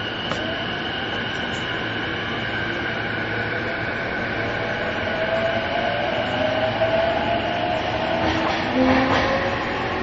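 An E233-2000 series electric commuter train heard from inside the car as it pulls away, its motor whine slowly rising in pitch as the train gathers speed. A steady electrical hum runs through it, noise from a recording-setting mistake, and a couple of faint clicks come near the end.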